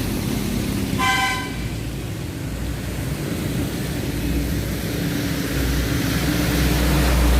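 A short vehicle-horn toot about a second in, over a steady low rumble and hiss like traffic or wind.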